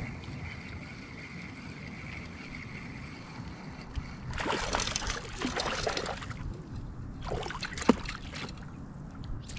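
Hooked trout splashing and thrashing at the water's surface beside a kayak while being reeled in, in two bursts about four and seven seconds in, the second ending in a sharp slap.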